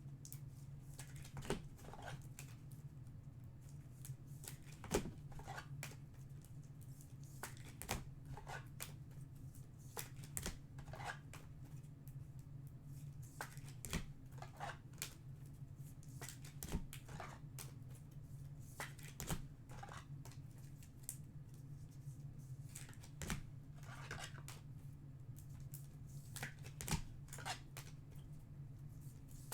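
Trading card packs and cards being handled: irregular faint clicks, taps and short rustles of wrappers and card stock, over a low steady hum.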